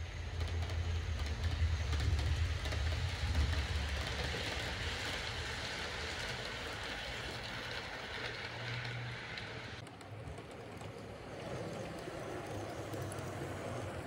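Model train running: the ACME E626 electric locomotive's motor hum and the wheels of its loaded flat wagons rolling on the model track, a steady low hum with rolling noise over it. Just before ten seconds the sound changes abruptly to the wagons rolling past close by.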